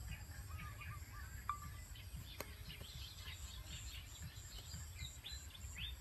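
Faint chirping of small birds in short, repeated calls over a low, steady background rumble, with a single sharp click about two and a half seconds in.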